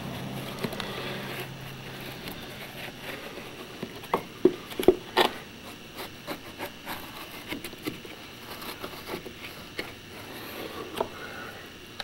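Bar of soap rubbed against a swollen wooden window sash and its track to lubricate it, a dry scraping and rubbing with scattered small clicks. A few sharp knocks come about four to five seconds in.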